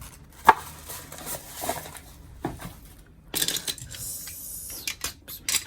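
Small items being moved and set down on a tabletop while clearing space: a sharp click about half a second in, a few lighter knocks, and a stretch of rustling in the middle.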